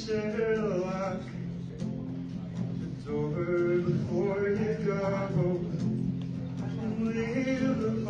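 A singer performing a song live over steady accompanying chords. Sung phrases come at the start, again from about three to five and a half seconds in, and once more near the end.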